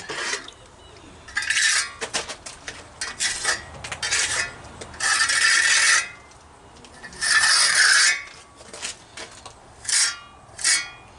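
Trowel scraping and smoothing over a fresh cement patch in a series of irregular strokes, some quick and short, a few about a second long.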